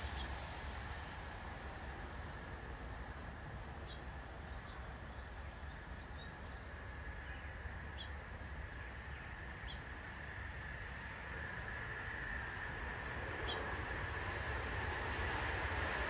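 Steady low outdoor rumble with faint, short bird chirps scattered through it. A steady high hum grows louder over the last few seconds.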